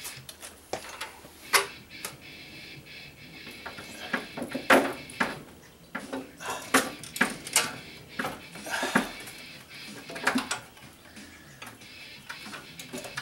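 Irregular metallic clanks and knocks as the heavy Magnum MSH4024RE inverter/charger's sheet-metal case is manoeuvred and set down onto its steel mounting enclosure.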